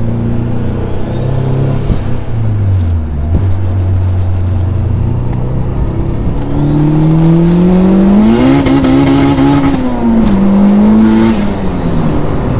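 Turbocharged 1.6-litre VTEC four-cylinder of a Honda Civic EG6 being driven. Its pitch dips and holds steady, then climbs hard through the middle with a high rising whistle over it, eases, and climbs again briefly before dropping near the end.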